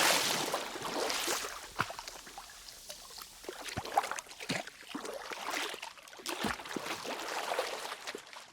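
Water sloshing and trickling, with scattered drips and a few short plonks, fading off after a loud splash-like burst at the very start.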